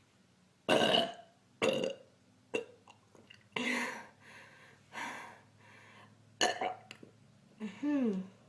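A woman burping again and again, brought on by gulping carbonated soda: about seven separate burps, the last one longer, with a pitch that slides down.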